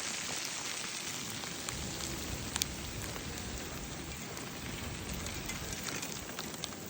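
Snowstorm precipitation pattering steadily on surfaces: a dense hiss scattered with many tiny ticks. A low rumble joins about two seconds in.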